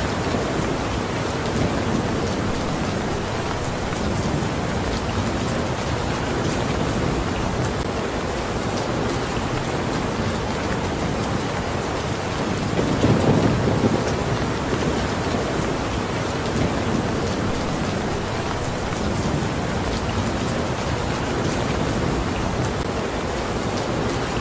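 Steady rain, with a low rumble of thunder swelling and fading about halfway through.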